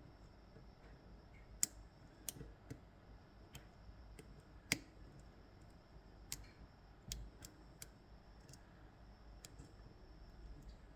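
Lock pick and tension tool clicking against the pins of an Ezcurra DS-10 lock, a lock with pins set opposite each other on both sides. About a dozen faint, sharp clicks at irregular intervals, the loudest about one and a half seconds in and near five seconds in.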